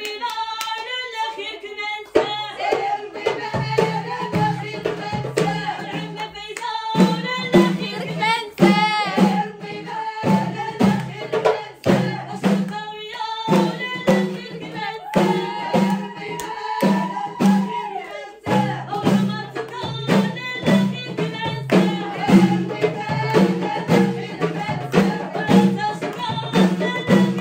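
Music with singing over an even drum beat and a low bass line.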